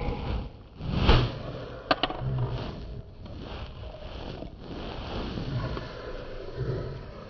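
Footsteps on a concrete sidewalk, about one a second, over rustling from the phone being carried, with a sharp click about two seconds in.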